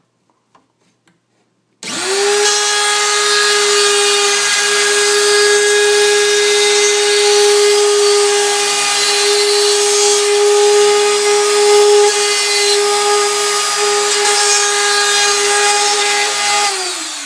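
Ryobi router switched on about two seconds in, quickly spinning up to a steady high whine as it cuts a hinge mortise into the wooden door jamb through a hinge template. It is switched off and winds down near the end.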